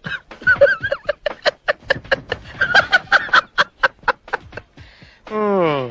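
A man snickering: a rapid run of short, stifled laughs, then a drawn-out falling vocal sound near the end.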